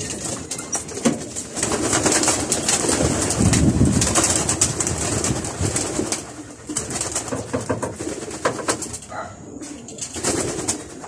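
Racing pigeons cooing and flapping their wings as they leave the loft, with many sharp taps and wing flutters. The loudest part is a heavy flutter about three to four seconds in, and the sound thins out near the end as the board empties.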